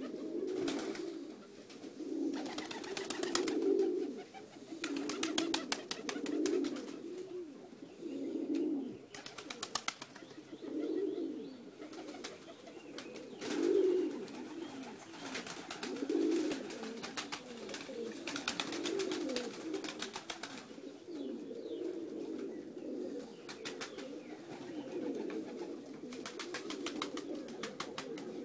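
A flock of domestic pigeons cooing, several birds overlapping in low, repeated, warbling coos. Short runs of rapid clicks break in now and then.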